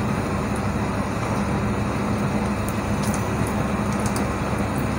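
Besan-coated potato tikiya deep-frying in a kadhai of hot oil, a steady sizzle over a low hum. A wire skimmer gives a few light clicks against the pan about three to four seconds in.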